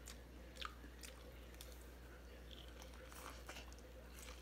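Faint chewing on a mouthful of steamed sweet corn on the cob, with a few soft mouth clicks.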